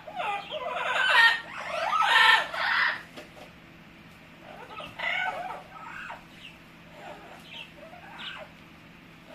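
Amazon parrot making a string of loud, wavering, clucking-like calls for about three seconds, then quieter scattered calls.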